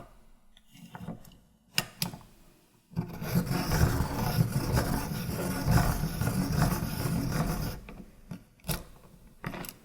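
Pencil sharpener sharpening a pencil: a continuous rasping grind for about five seconds, starting about three seconds in, with a few sharp clicks before and after it.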